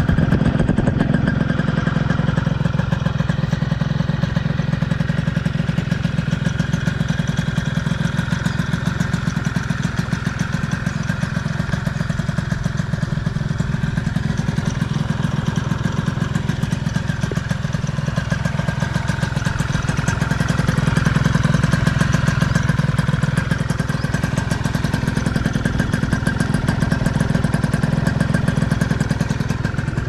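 Honda Dio scooter engine idling steadily through its newly fitted exhaust pipe, a fast, even run of exhaust pulses.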